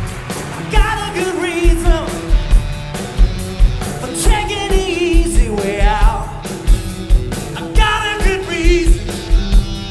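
A male singer performing a 1960s-style rock and roll song over a band, holding notes with vibrato. A kick drum thumps steadily about twice a second.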